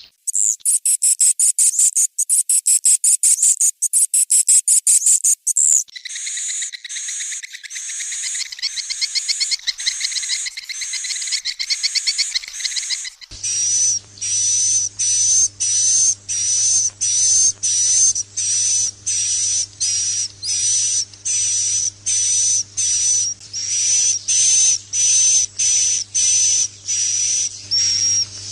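Recorded swiftlet calls, the sound played to lure swiftlets: rapid high chirring twitters, changing about six seconds in to chattering chirps. About thirteen seconds in it switches to a short high call repeated about twice a second over a low steady hum.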